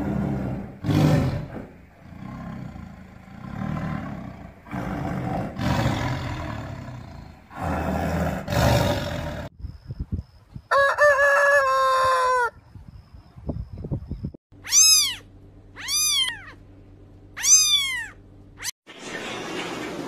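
A rooster crows once, a long call of about two seconds near the middle. Before it come several rough, low bursts of animal sound. After it come three short arched calls, a second or so apart.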